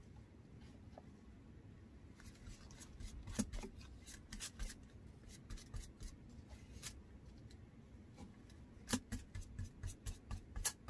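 Faint scratching of paintbrush bristles working a coat of sealer onto an air-dry clay spoon rest, with irregular light taps that come more often near the end.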